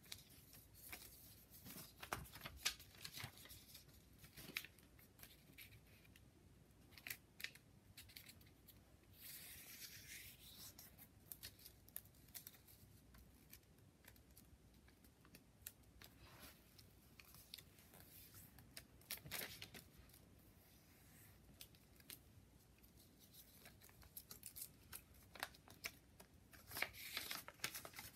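A sheet of origami paper being folded and creased by hand against a paperback book: faint, scattered crinkles, taps and rustles, with a longer rubbing swish about ten seconds in and a busier run of crinkling near the end.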